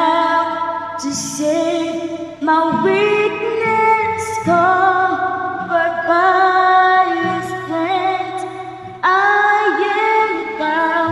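A woman singing a slow worship song in long held notes over a sustained instrumental accompaniment.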